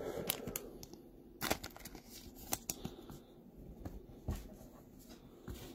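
Trading cards being handled by hand: soft slides and a few scattered light taps as the cards are shuffled and set down on the table.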